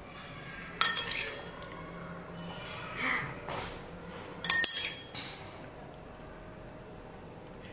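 A metal spoon clinking against a ceramic mug twice, each strike ringing briefly, about a second in and again about four and a half seconds in.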